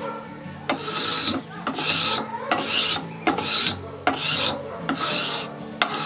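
Stanley No. 80 cabinet scraper pushed repeatedly along a wooden walking-stick shaft: about seven short rasping scrapes, roughly one a second, each stroke lifting fine shavings as it refines the rounding of the shaft.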